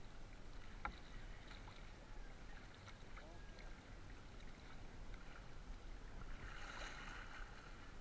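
Wooden paddle stroking through calm water beside a small outrigger canoe, with faint water trickle and lapping. There is a light knock about a second in, and a splashier stroke around seven seconds in.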